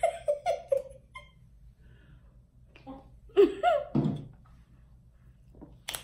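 A woman laughing in a quick run of short bursts at the start, followed about three seconds in by a brief, louder vocal sound of about a second.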